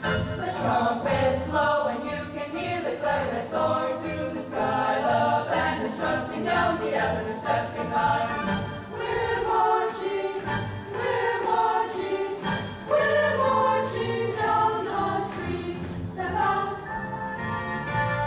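A boys' chorus singing together, many young voices in a sustained sung melody.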